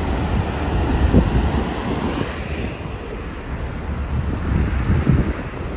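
Wind buffeting the microphone on a moving lake ferry, over the rush of the churning wake, with gusts swelling about a second in and again near the end. The higher hiss falls away about two and a half seconds in.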